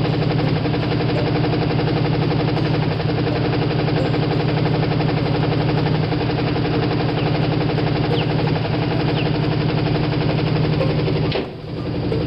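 1955 Ford's 272 Y-block V8 idling steadily with a rod knock. The sound drops out for a split second near the end.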